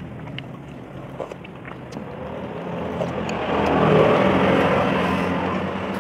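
A motor vehicle passing on the road, its noise growing to a peak about four seconds in and then fading, over a steady traffic hum. A few light clicks of a spoon and fork against a bowl.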